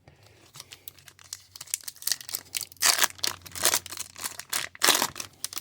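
Thin plastic card sleeve crinkling and crackling as a trading card is handled and slid into it. It starts faint and comes in short bursts of crackles, loudest about three seconds in and again near the end.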